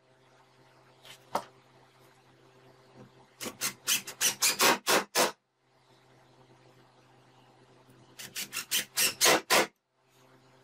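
Cordless drill/driver sinking screws into plywood: two bursts of rapid stuttering, rasping pulses, each growing louder and stopping abruptly as the screw seats. A single click comes shortly before the first screw.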